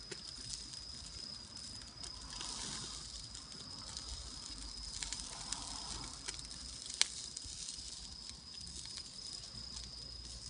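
Wood campfire crackling, with scattered small pops and one sharp pop about seven seconds in, over a steady high-pitched tone.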